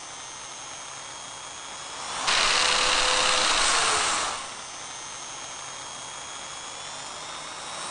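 Power drill running steadily with a high motor whine. For about two seconds in the middle it turns louder and rougher as the bit cuts into wood.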